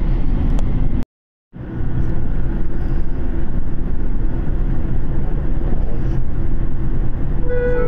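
Train running noise heard from inside the carriage: a steady low rumble of wheels on rails, cut off for about half a second about a second in, then resuming. Background music comes in near the end.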